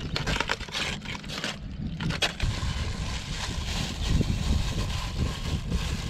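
Wind buffeting the microphone as a low, uneven rumble. In the first two seconds or so, aluminium foil and plastic wrapping crinkle as they are handled.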